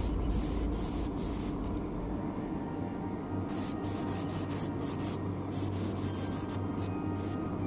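Airbrush spraying paint in repeated short bursts, its air hiss starting and stopping as the trigger is worked, over a steady low hum.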